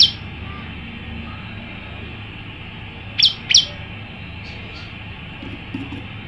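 Male prenjak lumut calling: short, sharp, high notes that sweep steeply downward. One comes right at the start, a pair about three seconds in, then two faint ones just after.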